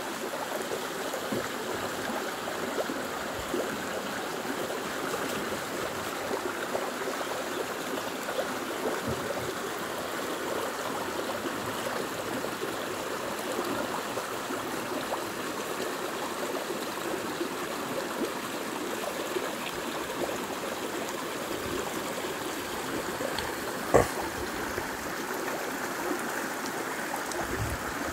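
Shallow rocky stream running steadily, water rushing and trickling over and between stones. A single sharp knock stands out near the end.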